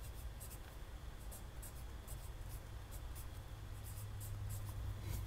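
Graphite pencil writing on sketchbook paper: a run of short, irregular strokes as a label is lettered by hand, over a low steady hum.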